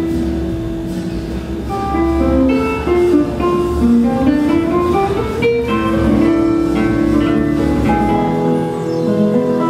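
Acoustic guitar played live, picking out single notes and chords in a flowing line, with a run of rising notes about four to five seconds in.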